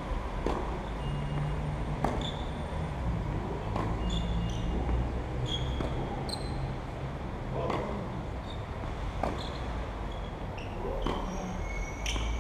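Tennis rally: a ball struck by rackets and bouncing on the court, with about eight sharp hits roughly every one and a half to two seconds, over a steady low background rumble.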